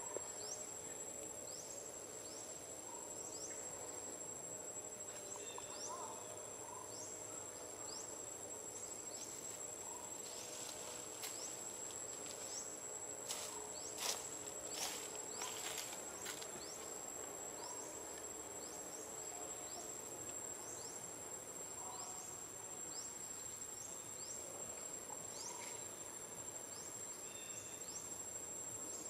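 Steady high-pitched insect chorus: one shrill held tone with short chirps repeating over it. A few brief clicks come about halfway through.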